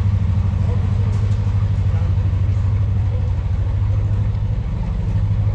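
Canal trip boat's inboard diesel engine running steadily at low cruising speed, a deep, even hum with a fast pulse.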